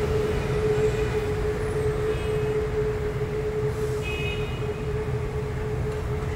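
Taipei Metro Circular Line train approaching on the elevated track: a steady hum over a low rumble, with two short high-pitched squeaks about two and four seconds in.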